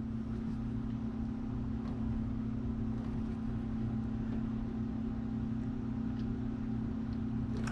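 A steady low hum that holds the same pitch throughout, with no other distinct sound.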